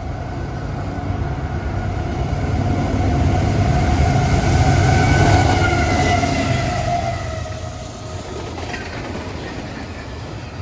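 A CSX GE diesel locomotive approaches and passes at speed. Its engine hum and whine swell to their loudest about five seconds in, and the whine drops in pitch as it goes by. Then double-stack intermodal cars roll past with steady wheel-on-rail noise.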